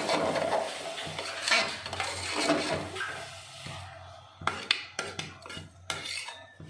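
A metal slotted spoon stirring and scraping rice and vegetables around an aluminium pressure cooker as the rice is roasted in oil. Over the second half come a string of sharp metal clinks.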